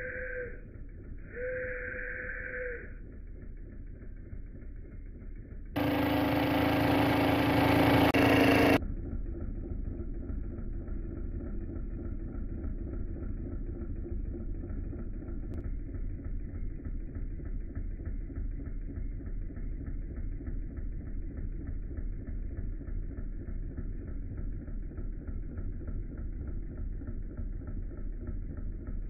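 Wilesco D16 model steam engine, heard slowed down: two short toots of its steam whistle, then a loud hissing burst of about three seconds, then the engine running steadily with a fast, even beat.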